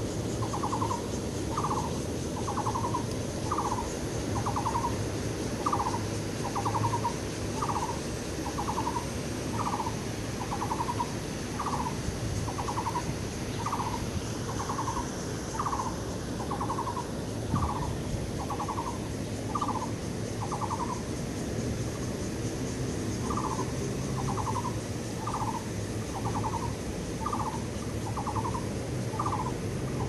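An animal's short call repeated about once a second, with a pause of a couple of seconds about two-thirds of the way through, over a steady high-pitched insect drone.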